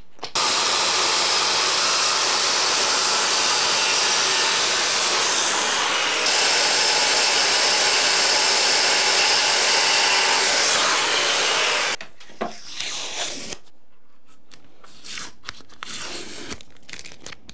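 Circular saw running and cutting through a length of door trim, stopping sharply about twelve seconds in. A few light knocks follow.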